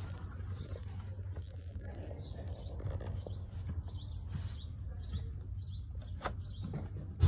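Faint clicks and rattles of fingers working the plastic locking clip of an ignition coil-pack connector, with a sharper click about six seconds in. Under it runs a steady low outdoor rumble, with faint bird chirps.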